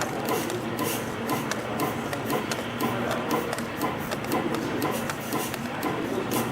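CNC spring coiling machine running, feeding and coiling wire into compression springs. A steady mechanical whir is broken by many sharp clicks, several a second.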